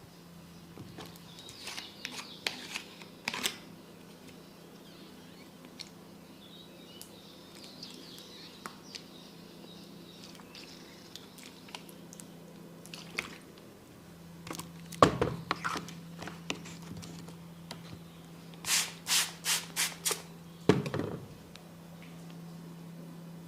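Tok sen wooden tools in use during a head massage: scattered sharp wooden taps and clicks, including a quick even run of about six taps near the end, over a steady low hum.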